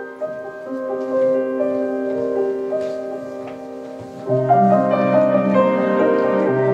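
Instrumental music of long held notes in several voices. It grows louder and fuller about four seconds in, when a low bass note joins.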